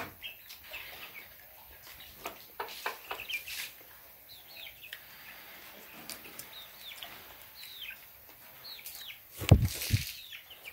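Chicks peeping, a scatter of short, high chirps that fall in pitch; a single loud thump near the end.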